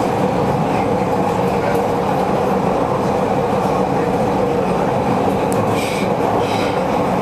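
Inside a PATH PA-5 rapid-transit car running at speed: a steady, dense rumble of wheels on rail and traction motors, with a light clickety-clack. A short, brighter rattle or squeal comes about six seconds in.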